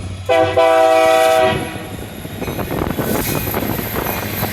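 Air horn of a Union Pacific SD70M diesel locomotive sounding one steady multi-note chord of about a second, shortly after the start. The clatter and rumble of the passing train's wheels on the rails follows.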